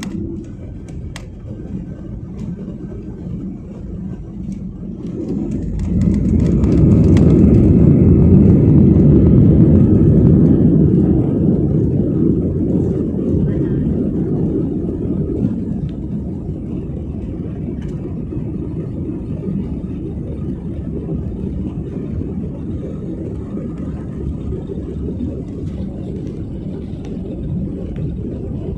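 Airliner jet engines heard from inside the cabin, spooling up about five seconds in to a loud, low rumble, then easing over the following seconds to a steady drone: the sound of a takeoff run.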